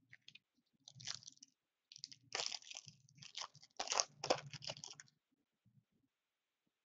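Foil wrapper of a Black Diamond hockey card pack being torn open and crinkled. It makes a run of crackling rustles that starts about a second in, is busiest in the middle and stops about five seconds in.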